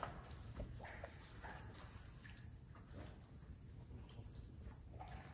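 Faint scattered footsteps and scuffs on concrete, over a steady high trill of crickets.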